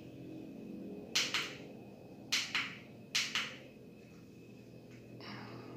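Three pairs of sharp clicks, the two clicks of each pair about a fifth of a second apart, over a faint steady high whine and low hum.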